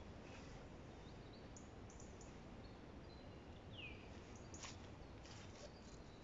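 Near silence: faint outdoor background hiss with a few short bird chirps, one falling call about four seconds in.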